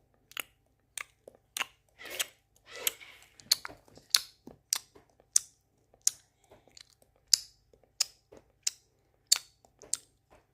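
A person chewing food close to the microphone, ASMR-style: a regular run of short, sharp mouth clicks and crunches, about one and a half a second.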